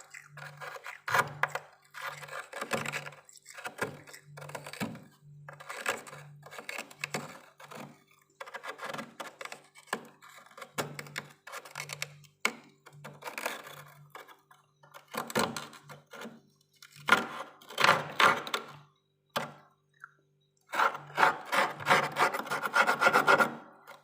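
A metal spoon scraping thick frost in many short, rasping strokes, with a pause of a second or two and a fast run of strokes near the end.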